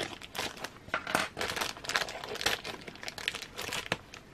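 Plastic packaging crinkling and rustling, with a run of short sharp clicks and taps, as a small clear plastic figure part (a pair of fairy wings) is taken out of it.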